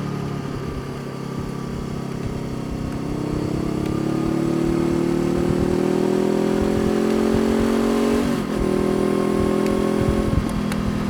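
Honda CBR500R's parallel-twin engine pulling under load, its pitch rising slowly as the bike gathers speed. About eight seconds in the sound breaks briefly for a gear change, then carries on a little lower and steadier.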